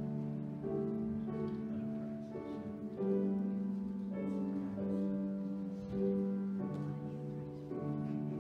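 Slow instrumental music: held chords that change every second or two.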